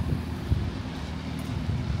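Wind buffeting the microphone in a gusty low rumble, with a sharper gust about half a second in, over outdoor street ambience.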